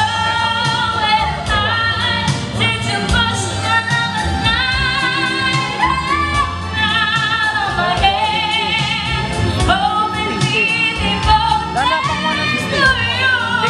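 A singer singing a melody into a microphone with strong vibrato, over backing music with a steady beat.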